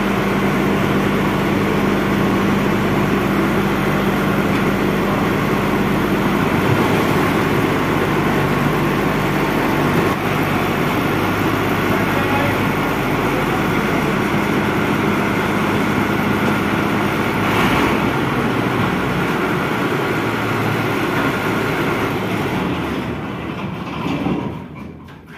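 Swaraj 8100 combine harvester's diesel engine running steadily, then shutting off and running down about a second before the end.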